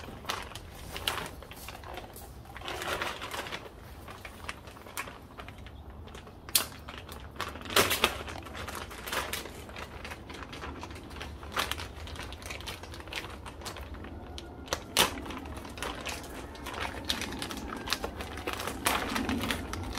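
Clear plastic packaging bag rustling and crinkling as it is cut open with a utility knife, with scattered sharp clicks and snaps, several of them louder than the rustle.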